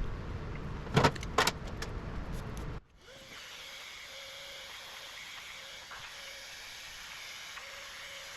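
A low rumbling noise with two sharp clicks about a second in, then an abrupt cut to a steady hiss with a thin, high whine.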